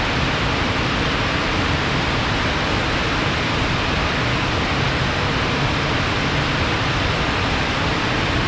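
Swift water rushing steadily, a stream running fast after rain.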